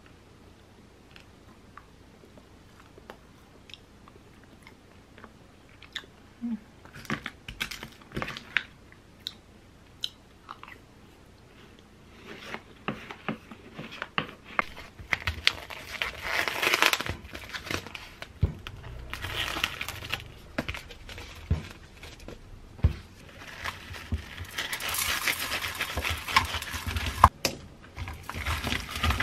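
Crunching bites of granola and fruit, with a wooden spoon scraping and clicking against a wooden bowl, as scattered sharp clicks and crunches. Later, gloved hands scrub whole lemons with coarse salt in a ceramic bowl, a gritty rubbing hiss.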